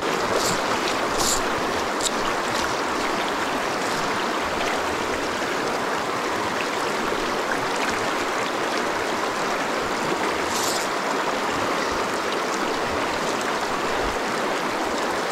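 Shallow, clear creek running over a gravel and cobble bed: a steady rush of moving water, with a few brief, faint high ticks near the start and about ten seconds in.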